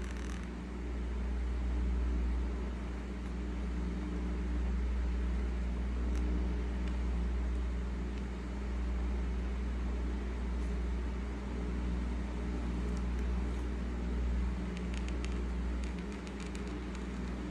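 A steady low mechanical hum with a few even tones above it. Near the end come faint quick scratches of a felt-tip marker on paper.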